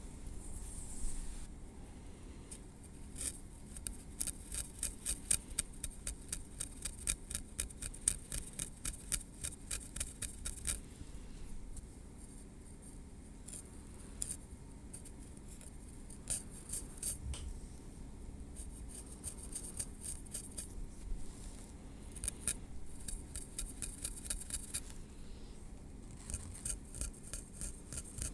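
Metal tweezers clicking close up in quick runs of about three or four clicks a second, with quieter stretches between the runs.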